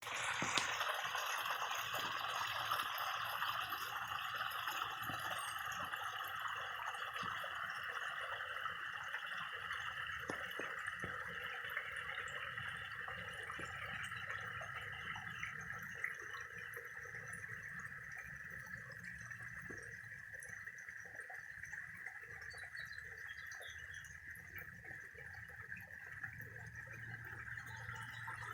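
Water from a small backyard waterfall splashing steadily into a pond, slowly growing fainter.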